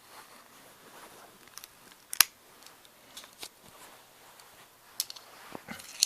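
Sharp metallic clicks from a 9 mm handgun being handled, a few scattered clicks with the loudest about two seconds in.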